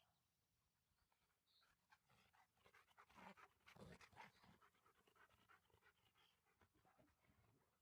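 Faint panting of a dog, with the breathing briefly louder about three to four seconds in.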